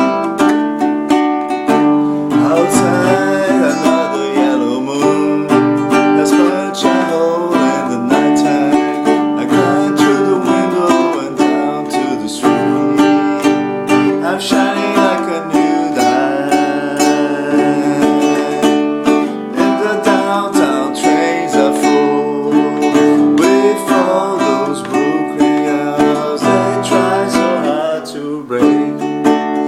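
Music: plucked string instruments playing chords with a wavering melody line above them, an instrumental passage of the song.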